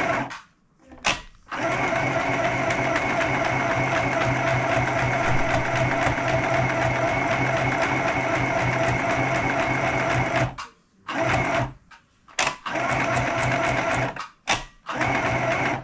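Compact electric sewing machine stitching through fabric: a short run and a brief blip, then a long steady run of about nine seconds, followed by four or five short bursts of stitching with pauses between them.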